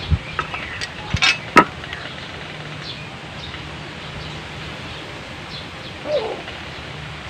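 A few sharp clicks and knocks within the first two seconds as a knife is handled and worked against a wooden gun stock. Small birds chirp in the background, and a chicken gives a brief call about six seconds in.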